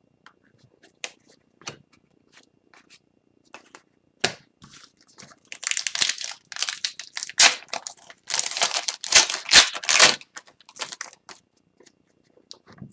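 Upper Deck hockey cards being handled: small clicks and taps, then a few seconds of papery rustling and sliding of card stock and pack wrapper from about halfway through, fading back to faint clicks near the end.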